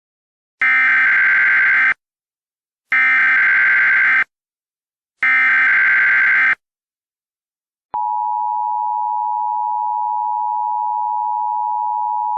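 Emergency Alert System header: three bursts of SAME digital data tones, each about a second and a half long with short gaps between, then the steady two-tone EAS attention signal starting about eight seconds in.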